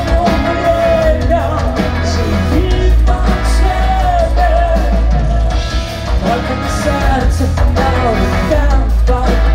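Live rock band playing loud: a lead singer's voice over electric guitar, bass guitar and drums, with a heavy, booming low end.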